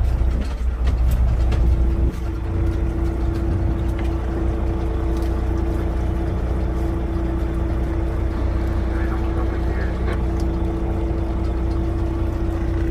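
Fishing boat's engine running steadily with a low drone and a steady hum, a little quieter after about two seconds.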